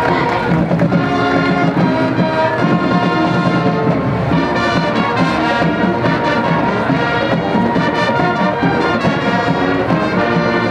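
A high school marching band playing a brass-led tune, with trumpets and trombones to the fore over drums.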